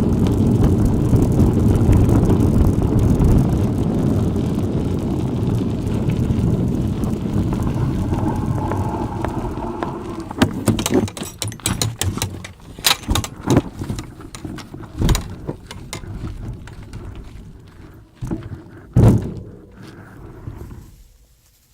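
Wind buffeting the microphone over the rumble of a bicycle riding on an off-road track. About halfway through the steady noise falls away, and scattered clicks and knocks from the bike follow.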